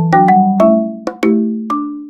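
Background music: a marimba-like mallet melody, struck notes about two or three a second, each ringing and fading.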